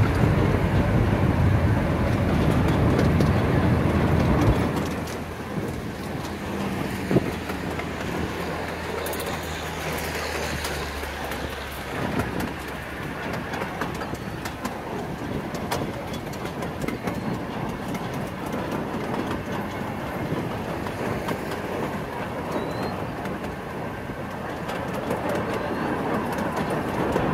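Miniature passenger train rolling along its track, heard from a rear car: a steady rumble of wheels on rail with a low hum. It is louder for the first four or five seconds and then quieter and even.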